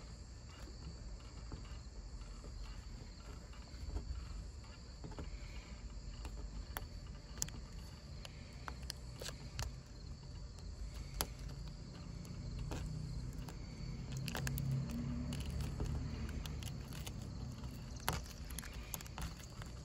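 Vinyl stencil being peeled off a vehicle's glass window by hand with a paper towel: scattered faint crackles, clicks and rustles. A steady high insect chirring runs underneath, and a low rumble swells in the second half.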